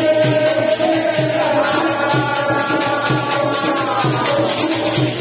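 Rustic folk devotional singing: long sung notes held over a steady hand-drum beat, with wooden clappers and hand percussion rattling along.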